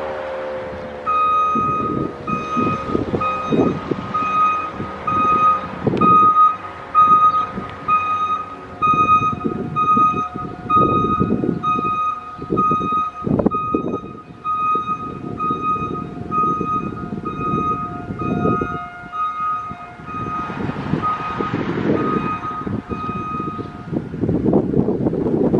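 A Federal Signal Model 5 mechanical siren winds down, its pitch falling over the first few seconds. Then a vehicle's reversing beeper sounds in steady, evenly spaced beeps until near the end, over gusty rumbling wind on the microphone.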